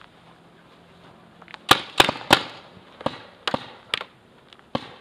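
Paintball marker firing a rapid, uneven string of sharp pops, about eight in all, starting a second and a half in.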